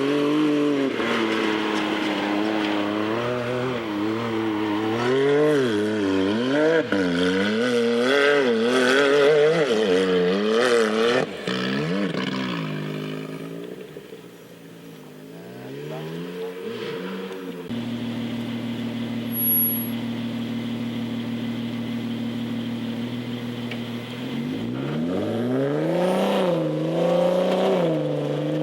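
Jeep engine revving up and down over and over as it crawls over rough off-road ground. It settles to a steady idle about two-thirds of the way through, then revs up and down again near the end.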